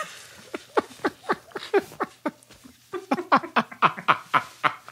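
A person laughing in a long run of short giggles, each one falling in pitch, coming faster, about four or five a second, in the second half.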